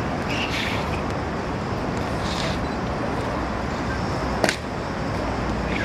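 Steady hum of city traffic, with one sharp clack about four and a half seconds in: an Evzone guard's hobnailed tsarouchi shoe stamping on the stone paving during the slow ceremonial march.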